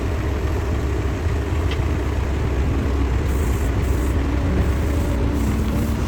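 Heavy diesel machinery engine running steadily: a deep, even low rumble.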